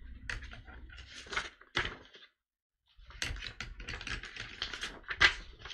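Sheets of paper notes being handled and shuffled: a run of light clicks and rustles, broken by a moment of dead silence about two seconds in.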